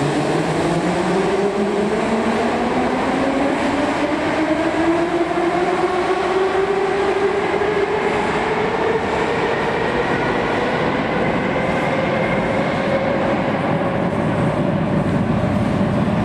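Moscow Metro train pulling out of the station: its traction motors whine, rising steadily in pitch over about ten seconds, over the loud, steady noise of the running train.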